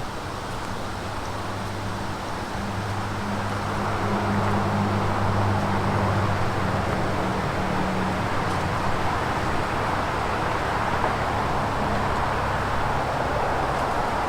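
Steady road-traffic noise, with the low engine hum of a heavy vehicle swelling about three seconds in and fading after about eight seconds.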